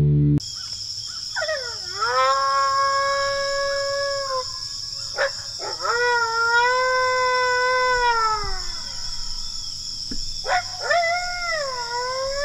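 Drawn-out coyote howls from a predator call, sounded to draw coyotes in. There are three long howls, each swooping up and then holding a steady pitch before dropping off; the third starts near the end. A steady high hiss runs underneath.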